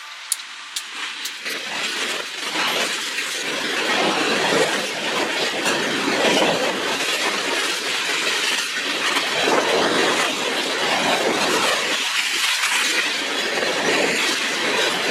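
Freight train passing close by: a steady rush and clatter of wheels on rail, with a few sharp clicks at the start, building over the first few seconds and then holding loud.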